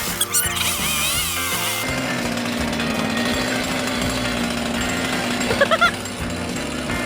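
Background music, joined about two seconds in by a chainsaw running steadily, cutting into a pumpkin.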